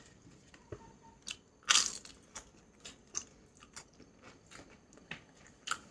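A person eating close to the microphone: irregular biting and crunching clicks with soft chewing, the loudest crunch a little under two seconds in.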